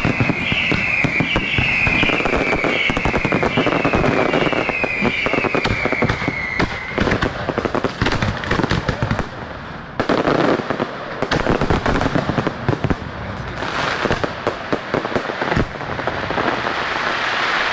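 Firework display going off: dense bangs and crackling throughout, with a high whistle that falls in pitch about twice a second over the first seven seconds.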